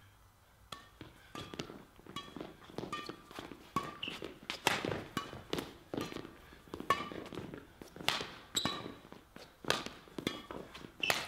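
Badminton rally: rackets striking the shuttlecock in a quick, uneven string of sharp hits, with shoes squeaking and feet stepping on the court floor between shots.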